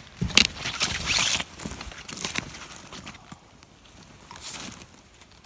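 Footsteps crunching and rustling through forest brush and dead twigs, uneven and loudest in the first second and a half.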